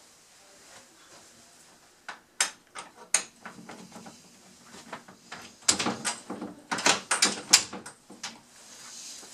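Steel door hinge pin being fitted back into its hinge: a series of sharp metallic clicks and knocks, a few at first, then a dense cluster about six to eight seconds in.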